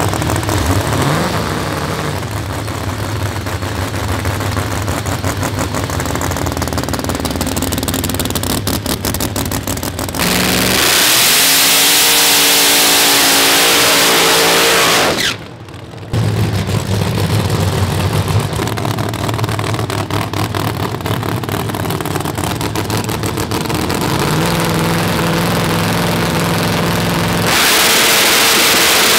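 A no-prep drag car's engine idling with rapid pulsing, then revving up loud for a smoky burnout with the pitch rising. Near the end it jumps to full throttle as the car launches.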